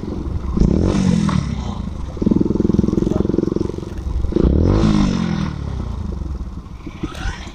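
A Bajaj Pulsar NS125's single-cylinder engine running through an aftermarket SC exhaust as the bike rolls. The rider blips the throttle twice, about a second in and again about five seconds in, each a quick rise and fall in pitch, with steadier running between.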